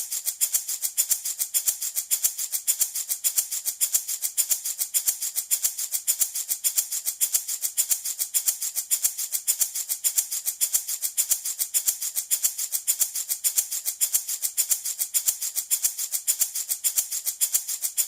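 Baby rattle shaken steadily, a bright rattling of beads at about four to five shakes a second.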